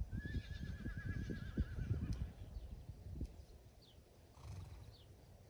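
A horse whinnies once: a long, wavering call lasting about two seconds that trails off. Under it runs an irregular low rumble, and a few faint, short falling chirps come later.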